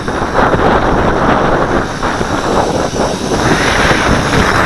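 Strong gusty wind of around 15 knots buffeting the microphone: a loud, uneven rush that swells and dips.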